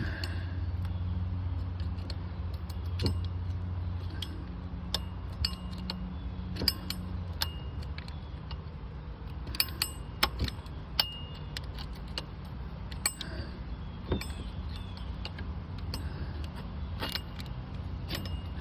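Hand tools clinking and tapping against metal engine parts as components are unbolted, a scattering of sharp clicks over a steady low hum.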